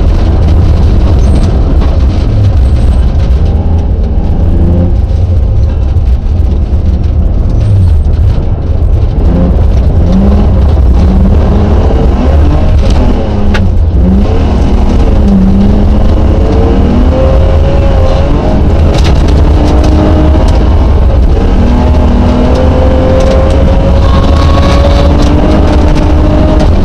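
Rally car engine heard from inside the cabin at full stage pace, revving up and dropping back again and again with gear changes and lifts, over a loud low rumble of tyres and body on a snowy road.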